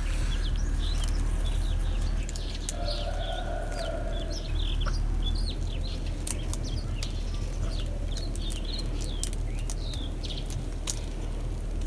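Chickens clucking with many short chirping calls, over a steady low rumble. A few sharp clicks come through as matches are struck on the matchbox.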